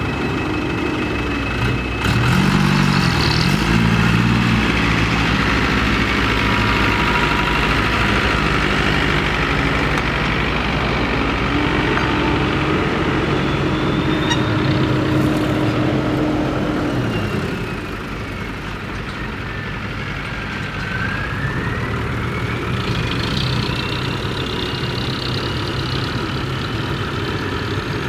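Kobelco excavator's diesel engine running and working, its pitch shifting a few times, with a faint whine that falls and then rises in the middle.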